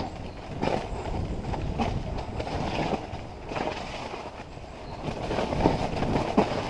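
Mountain bike descending a rough, muddy forest trail, heard from a helmet-mounted camera: a continuous rumble of tyres over dirt and roots, with the bike rattling and knocking over the bumps.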